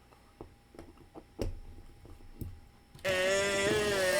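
A few light clicks and knocks from handling a diecast car and a drill. About three seconds in, a handheld power drill starts and runs with a steady whine, its pitch dipping briefly as the bit bites into a rivet to drill off the last of its ring.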